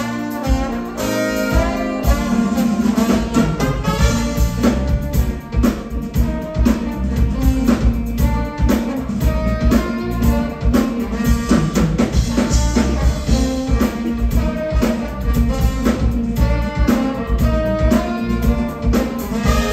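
Live band playing with a drum kit, guitar and brass, keeping a steady drum beat.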